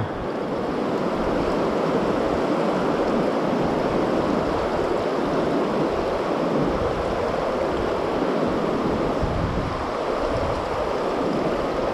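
Fast river current rushing steadily, close by, with water churning around the legs of a wading angler.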